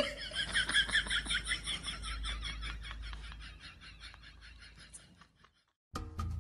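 A cat's rapid chattering call, an even train of about eight quick pulses a second that fades away and stops about five seconds in.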